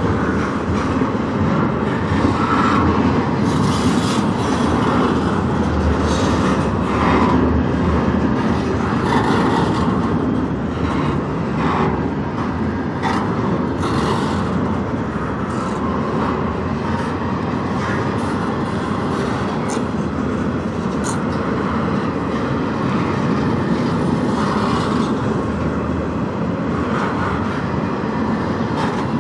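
Double-stack intermodal container cars of a freight train rolling past: a steady rumble of steel wheels on rail with scattered irregular clanks and clicks.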